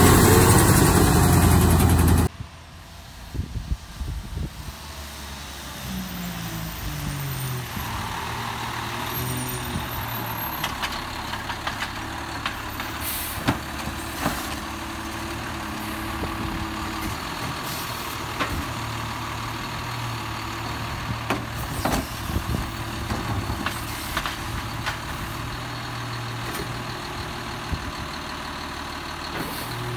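Autocar Autoreach automated side-loader garbage truck working. Its engine revs up and down as the hydraulic arm cycles, with sharp metallic clanks and knocks from carts being gripped and dumped. A louder stretch at the start cuts off suddenly about two seconds in.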